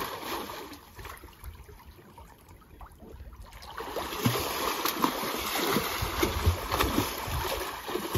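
Swimming-pool water splashing and lapping around a swimmer, faint at first and louder from about four seconds in.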